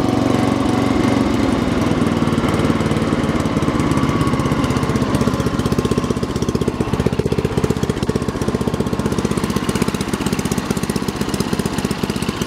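Murray 40702X92C lawn tractor's 12.5 HP Briggs & Stratton I/C single-cylinder engine running steadily. After about five seconds the steady tone gives way to a more evenly pulsing beat.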